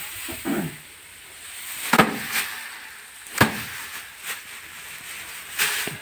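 Bundles of harvested rice stalks beaten by hand against a wooden plank bed to knock the grain loose: three sharp thwacks about a second and a half apart, with rustling straw between them.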